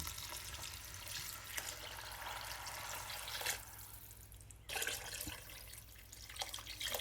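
Water being poured into a pot of semolina cooking in ghee, a steady pouring for about three and a half seconds that then dies away, with a brief splash near five seconds.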